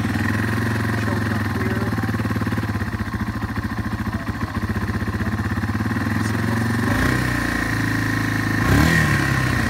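1992 Yamaha XT225 Serow's 223 cc air-cooled single-cylinder four-stroke idling on choke just after an electric start. The idle note shifts about seven seconds in, and a short blip of revs rises and falls near the end.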